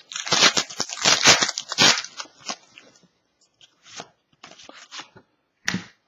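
A foil trading-card pack wrapper torn open and crinkled for about two seconds, followed by a few short rustles and clicks as the cards are handled.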